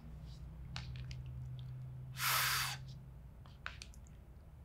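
A man pronouncing the letter sound for F: one short, clipped "fff" hiss about two seconds in, with no vowel added.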